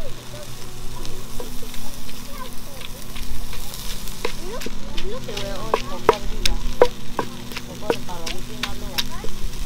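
Meat sizzling on a grill, with sharp wooden knocks from about four seconds in as a wooden pestle pounds papaya salad ingredients in a wooden mortar.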